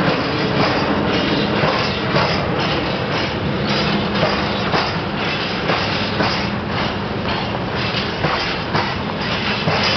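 Empty freight wagons rolling past slowly, their wheels knocking repeatedly over rail joints above a continuous rolling rumble.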